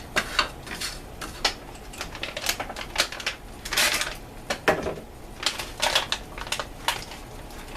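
Plastic MRE raisin pouch crinkling in irregular rustles and crackles as it is handled and torn open.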